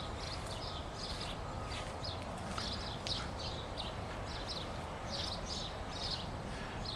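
Small birds chirping, many short high chirps in quick, uneven succession, over a steady low background hum.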